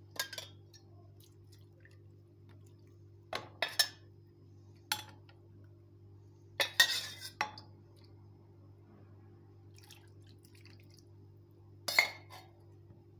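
Scattered sharp clinks and knocks of glass and kitchenware, a handful of them a few seconds apart, with the loudest cluster about seven seconds in, over a faint steady hum.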